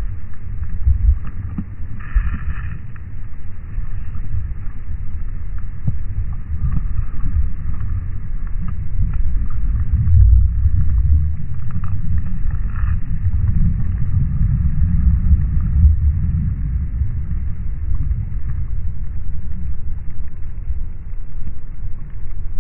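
Muffled underwater noise heard through a camera's waterproof housing: a steady low rumble of moving water, with short brighter rushing sounds about two seconds in and again near the middle.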